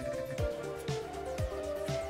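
Background electronic music with a steady kick-drum beat and sustained synth notes.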